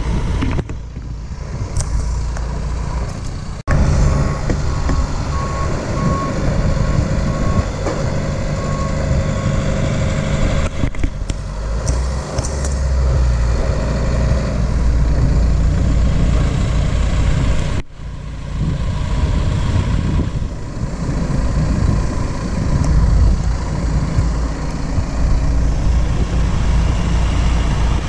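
Diesel engines of a John Deere tractor and a telehandler running steadily as the tractor's hydraulics tip a silage trailer, its body rising to unload grass silage. A repeated beep sounds from about four to ten seconds in, and the sound breaks off briefly twice.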